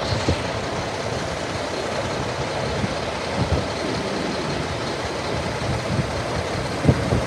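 Heavy garbage trucks' diesel engines running: a Mack roll-off truck and a front-loader garbage truck, a steady engine din with a few light knocks.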